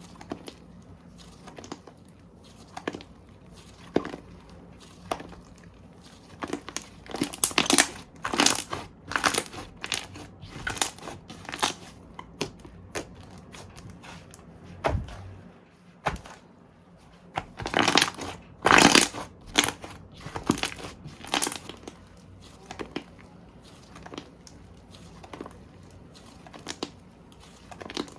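Slime being squished and pressed by hand, giving irregular runs of crackling pops and clicks, busiest about a quarter of the way in and again past the middle.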